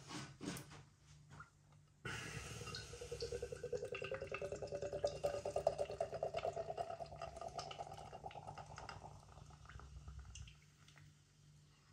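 Pale ale poured fast from a 440 ml can into a glass: a few light clicks at first, then from about two seconds in a steady rippling glug that rises in pitch as the glass fills, tailing off near the end.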